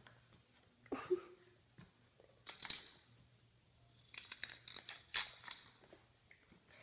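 Faint, irregular scratchy clicks and scrapes of a puppy's claws scrambling on a tiled floor, with a cluster of them about four to five and a half seconds in.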